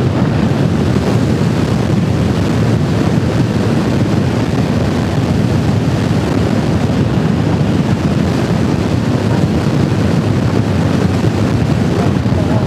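Steady wind noise buffeting the microphone of a motorcycle moving at road speed, with the bike's engine and road noise mixed in underneath.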